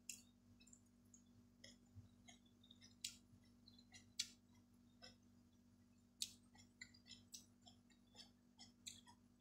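Faint sounds of someone eating rice by hand: quiet chewing with scattered sharp mouth clicks and smacks, the loudest about four and six seconds in.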